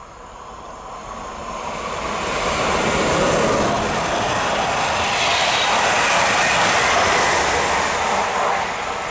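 PKP Intercity passenger train passing close by at speed, its rolling noise building quickly over the first few seconds, staying loud, and starting to fade near the end.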